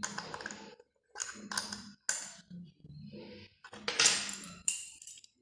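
Metal clinks and clatter as aluminium V-brake lever parts and a metal tool are handled and set down on a wooden table, in several short bursts. The loudest, sharpest clatter comes about four seconds in.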